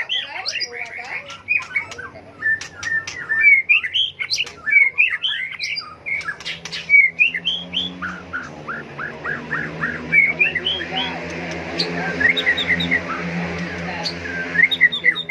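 White-rumped shama singing: a rapid, varied run of whistles, chirps and harsher notes. About halfway through, a steady low hum starts beneath the song.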